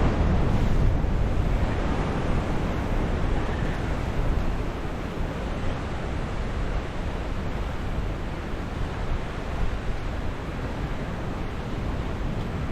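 Ocean surf washing against rocks, with wind on the microphone; a little louder in the first second or so, then steady.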